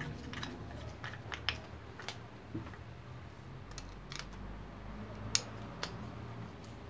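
Scattered light clicks and metal taps of hand tools handled against the stand mixer's metal head and gear, the sharpest about five seconds in, over a faint low hum.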